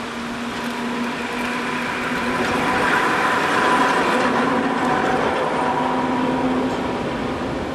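Vintage two-axle museum tram passing by on its rails, the rolling rumble of its wheels with a faint steady hum, swelling to a peak about three to four seconds in and then slowly fading as it moves away.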